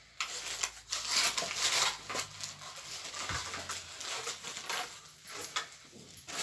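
Handling noises: irregular rustling with many light clicks and taps as small toy pieces and packaging are moved about, busiest about a second in.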